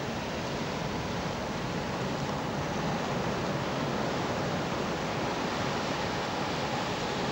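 Ocean surf: a steady, continuous wash of breaking waves with no distinct single crashes, slightly louder in the middle.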